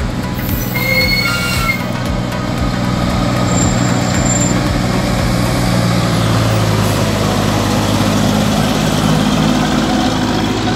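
Heavy diesel tractor-trailer engine running as the truck rounds a curve and passes close by, its low hum growing louder from about six seconds in. A brief high tone sounds under a second in.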